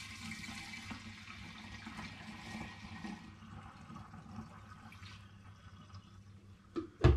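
Apple mead pouring from a plastic bottle through a plastic funnel into a glass demijohn, gushing and splashing as the jar fills and foams. The pour is strongest for the first three seconds or so, then runs on more faintly. A short knock comes near the end.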